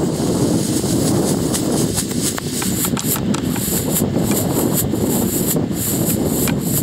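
Wind buffeting the microphone with a steady rumble. Through the middle of this, scattered sharp pops and crackles come in irregular clusters, fitting small crackling fireworks going off.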